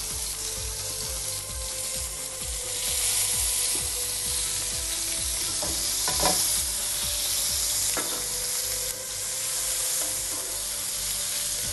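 Garlic paste sizzling in hot vegetable oil in a steel wok as it is stirred with a wooden spoon, a steady loud frying hiss that swells a little after a few seconds. Two light knocks of the spoon against the pan come in the second half.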